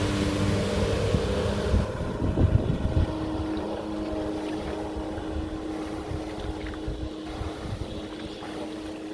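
Jet ski engine running with a steady drone. A rush of wind and water noise over it drops away about two seconds in, and the engine gets gradually quieter.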